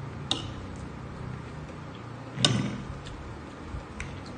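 Spoons clicking and clinking against plates during a meal: a few sharp clicks, the loudest about halfway through with a dull knock under it, over a steady low hum.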